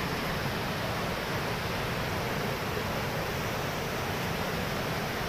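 Flooded mountain river in spate rushing over boulders: a steady, dense noise of fast turbulent water.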